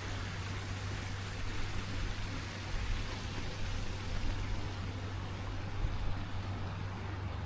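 Steady rushing and splashing of water from a small waterfall, an even hiss with no breaks.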